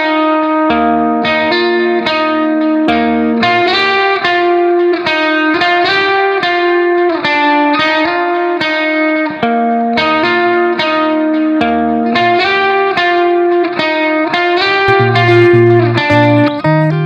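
Background music: a rhythmic guitar tune of quickly plucked notes over a bass line.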